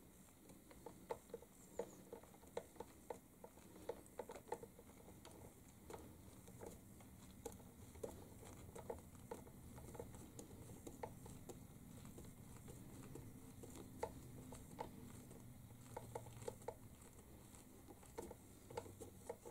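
Faint, irregular scratching and clicking of a tiny drill bit being twisted by hand into a hollow plastic fake tail light, boring a pilot hole.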